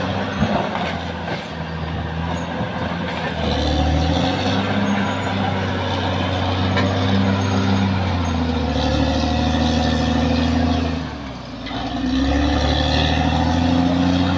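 Caterpillar D6R XL bulldozer's diesel engine running under working load, its pitch rising and falling as it is throttled up and eased off, with a brief drop late on before it picks up again. There is a single knock about half a second in.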